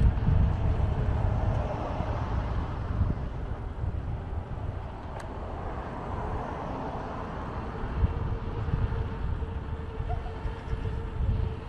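Wind buffeting the microphone of a camera riding on a moving bicycle, a heavy fluttering rumble, over street traffic noise and a steady faint hum.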